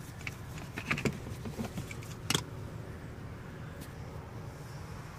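Handling noise in a car interior: a few light clicks and rattles over the first two and a half seconds, the sharpest near the middle, over a steady low rumble.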